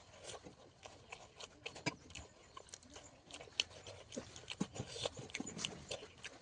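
A person eating close to the microphone: irregular wet clicks and smacks of chewing, several a second.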